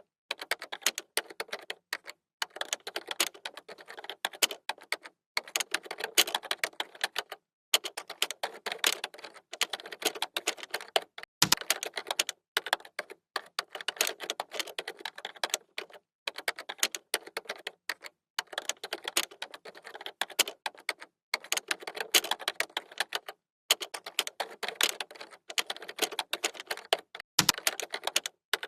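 Computer keyboard typing: quick runs of key clicks in bursts, broken by short pauses every second or two, with a deeper thud twice, likely the space bar or a heavier key.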